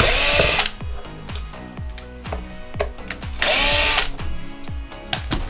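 Cordless drill driving out screws from a speaker's top cover. It runs in two short bursts of about half a second each, one at the start and one about three and a half seconds in, each with a rising motor whine.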